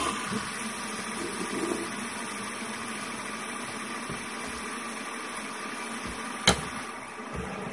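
Metal fidget spinner spinning on a wooden tabletop, giving a steady whir that eases slightly near the end. One sharp knock on the table about six and a half seconds in.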